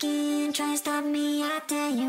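Music from a song: a melody of held notes, each lasting a fraction of a second to about a second, with short breaks between them and a small drop in pitch near the end.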